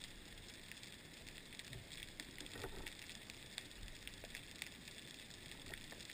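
Faint underwater crackling: a steady hiss with many scattered sharp clicks, heard through a camera's waterproof housing.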